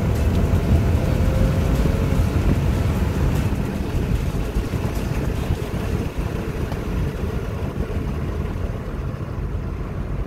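Engine and road noise inside the cabin of a 2010 Honda Odyssey minivan with its 3.5-litre V6, loud while the van speeds up. The noise eases off in the second half as the van slows under firm braking on newly fitted front rotors and pads.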